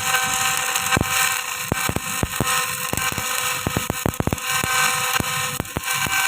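Electric arc welding on a steel pile splice joint: a steady crackling sizzle of the arc with irregular sharp pops and snaps throughout.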